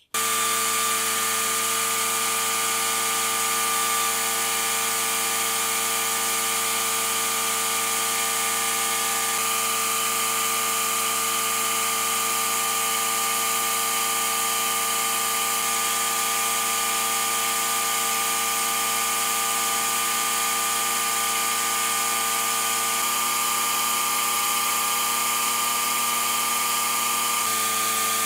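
An electric power tool motor running steadily with a whining, many-toned hum. Its pitch pattern changes slightly about a third of the way in and twice more near the end.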